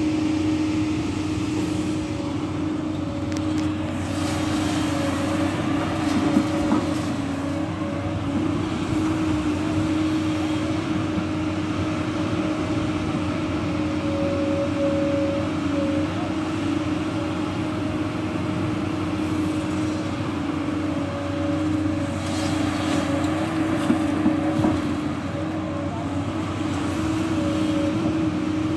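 JCB tracked excavator's diesel engine running steadily as it digs soil, a constant drone with a steady hum. A couple of brief knocks stand out, about six seconds in and near the end.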